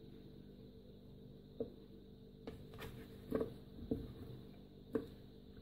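Several light knocks and taps as a stuffed tomato is set into a slotted plastic steaming basket among potato chunks, over a faint steady hum.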